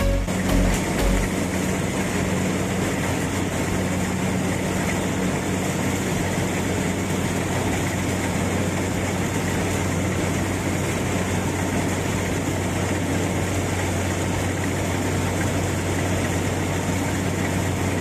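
An engine running steadily at a constant speed, with a steady low hum and no changes in pitch.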